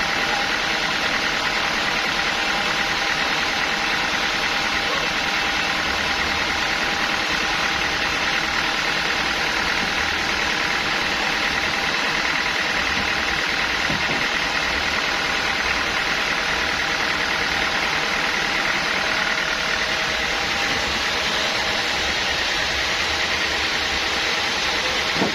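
Sawmill machinery running steadily at an even pitch and level, with no cut starting or stopping.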